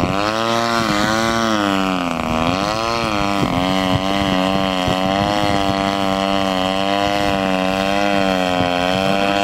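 Gasoline engine of a large radio-controlled aerobatic model airplane hanging nose-up on its propeller. Its pitch dips and rises as the throttle is worked, dropping twice in the first few seconds, then holds steadier with small wobbles.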